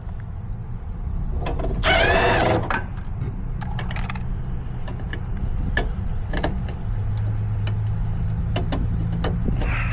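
Clicks and handling of parts and tools while a replacement furnace pressure switch is being fitted, over a steady low hum, with one short, loud whir about two seconds in.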